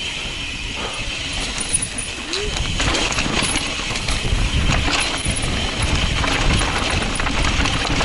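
Mountain bike ride down a rocky dirt trail, heard from the rider's helmet camera: tyres running over dirt and rock, with rattling and clicking from the bike and a steady rush of wind on the microphone. It gets louder about three seconds in.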